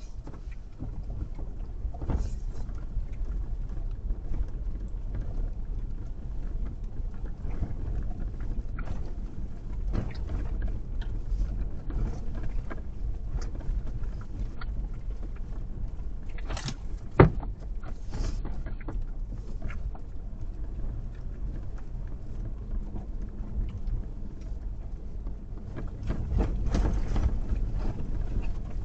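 A vehicle driving with a steady low rumble, broken by scattered knocks and clatters. There is one sharp knock about 17 seconds in, and the rumble gets louder near the end.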